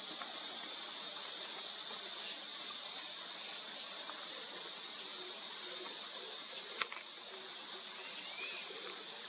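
Steady high-pitched insect chorus, with one sharp click about seven seconds in and a brief faint chirp shortly after.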